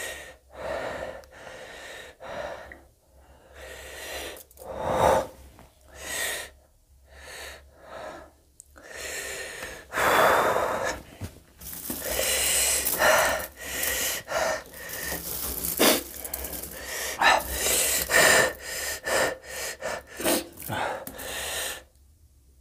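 A man gasping and breathing hard through the mouth, sharp breaths drawn in again and again with sniffs and wheezy exhales, some short and some long: his reaction to the burn of eating very hot green chillies.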